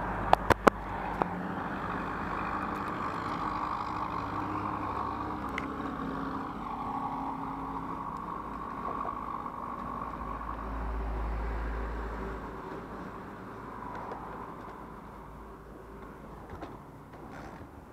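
A few sharp taps from handling the mounted camera at the start. Then the single-cylinder four-stroke engine of a Union Star 70cc motorcycle runs steadily while riding, a little quieter near the end.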